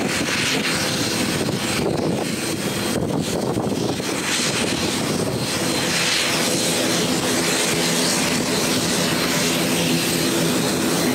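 Airliner engines running, a steady loud rushing drone. A low hum with a few steady tones joins it about six seconds in.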